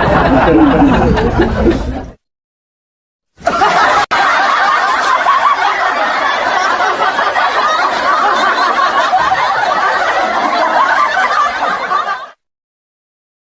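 Laughter sound effects: one laughing clip cuts off about two seconds in, and after a short silence a longer, dense stretch of laughter runs for about nine seconds and then stops.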